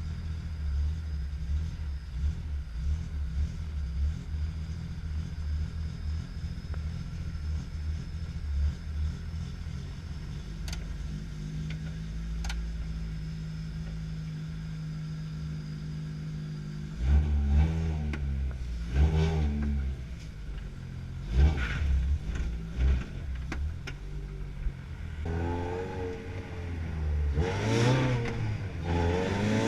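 VAZ-2108 (Lada Samara) engine running with a steady low hum, then from about two-thirds of the way through it is revved several times, its pitch rising and falling as the car pulls away.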